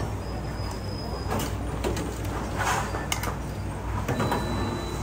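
Kitchen clatter: a metal ladle and bowls clinking and knocking several times against a steel counter and pot while food is dished up, over a steady low hum.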